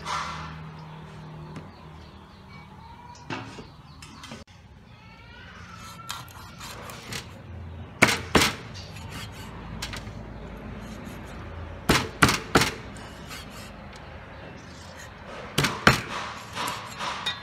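Meat cleaver chopping through a fish on a round wooden chopping block: sharp chops in small groups, two about eight seconds in, three about twelve seconds in, then several more near the end. A brief splash of hands in a bowl of water at the very start.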